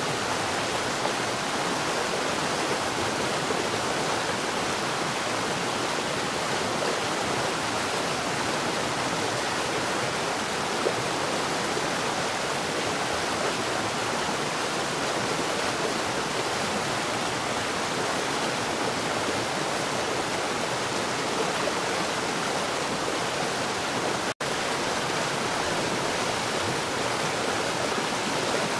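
Steady heavy rain: an even, continuous hiss of rainfall with no thunder. It cuts out for a split second near the end, then carries on unchanged.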